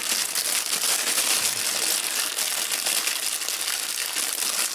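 Clear plastic parts bag crinkling continuously as hands handle and open it.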